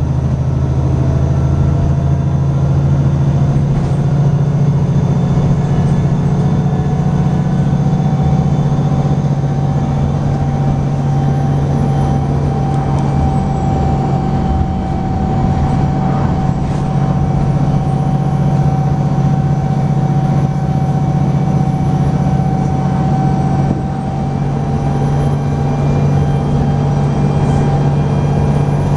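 VDL SB200 single-deck bus's diesel engine and drivetrain running steadily at road speed under hard driving, heard from inside the passenger saloon, with a steady high whine over the low engine note and road noise.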